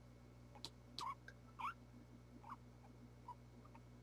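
Guinea pig giving four short, faint squeaks, spread about a second apart, with a couple of soft clicks among them.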